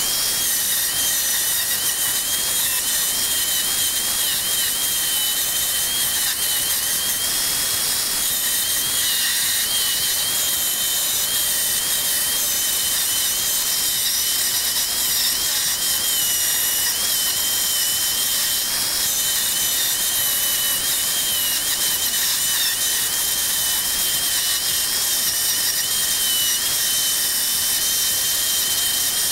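Corded electric drill running steadily with a wire wheel in its chuck, scrubbing rust off an old steel C-clamp pressed against it. The sound is a steady high whine over a harsh, hissing scrape.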